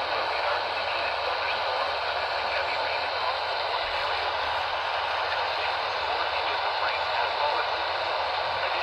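Radio static: a steady hiss from a radio receiver tuned to a weak, distant AM station, with faint talk buried under the noise.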